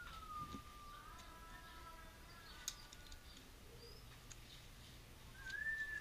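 Knife whittling a small block of jackfruit wood, with faint scrapes and a sharp tick about two and a half seconds in. Over it runs a long, wavering whistled tone that fades out around the middle and comes back near the end.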